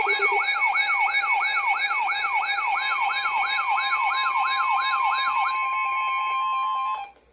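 Electronic emergency alert attention tone: a sweep repeating about three times a second over steady high tones. A steady tone near a kilohertz joins about three seconds in. The sweeps stop about five and a half seconds in, and the steady tones cut off just before seven seconds, ahead of the spoken severe thunderstorm warning.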